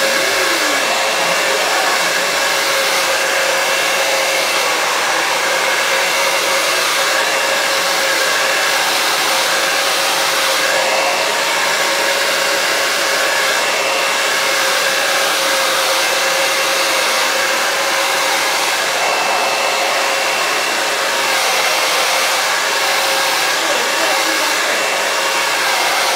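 Handheld hair dryer with a comb attachment running steadily on hot air: a loud, even rush of air with a steady whine running through it.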